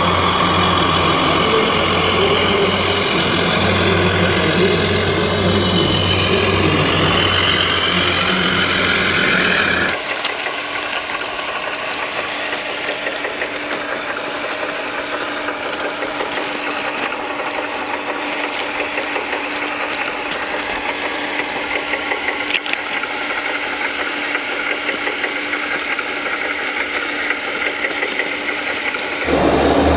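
Radio-controlled model construction machines running, a steady engine-like mechanical sound; about ten seconds in it cuts to a different machine with less low hum and a steady whine, and the first sound returns near the end.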